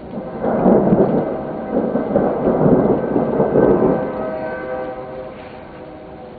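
A peal of thunder rumbling over steady rain: it breaks about half a second in, stays loud for roughly three and a half seconds, then dies away.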